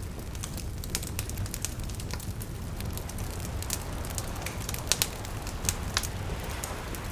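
Wood fire crackling with frequent irregular sharp pops, a few louder ones around five to six seconds in, over the soft steady wash of small waves lapping.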